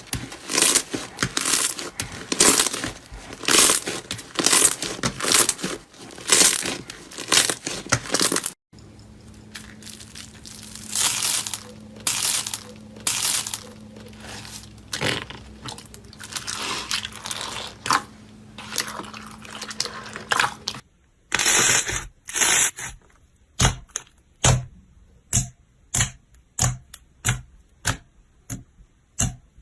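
Slime being squeezed and kneaded by hand, making crackly, crunchy squishes in quick repeated strokes. The sound then turns softer over a steady low hum. It ends in a run of sharp separate pops, roughly one or two a second.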